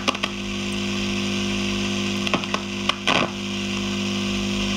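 Loud mains hum with a steady hiss from the loudspeaker of a 1968 Philips 22RB382 valve radio, with a few scratchy crackles, mostly around two to three seconds in, from its dirty volume control as it is turned. There is quite a bit of hum: the filter capacitors probably need changing.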